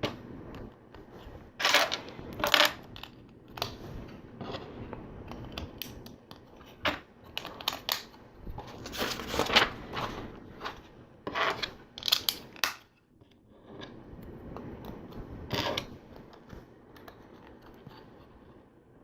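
LEGO bricks clicking and rattling as loose plastic pieces are picked from a pile and pressed together, in scattered short clatters with a few louder ones now and then.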